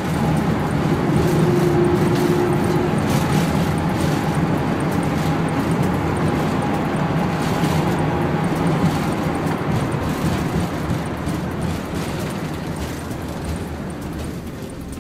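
Airliner jet engines at high thrust during the takeoff roll, heard inside the passenger cabin: a loud, steady noise with a low hum and a few held tones, swelling at the start and easing slowly after its peak a couple of seconds in.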